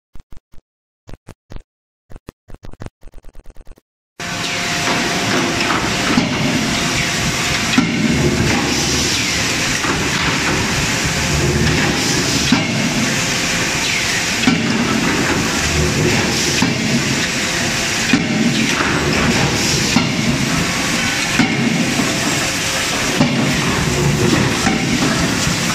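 A run of short ticks that come faster and faster. Then, from about four seconds in, steady forge-shop hiss and rumble, broken by a sharp blow every second or few from a 16 kJ CNC drop forging hammer striking glowing workpieces in its die.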